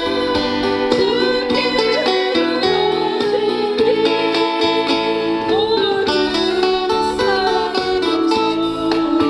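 A Korean gospel hymn sung with guitar accompaniment, the music steady and continuous.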